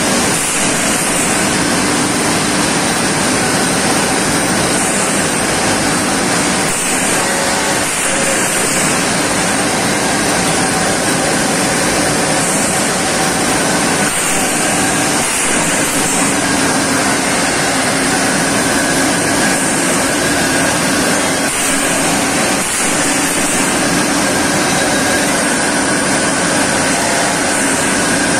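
ERW steel tube mill running: a steady, loud industrial din from the forming and sizing roll stands and their drives, with a hiss of coolant spraying over the rolls.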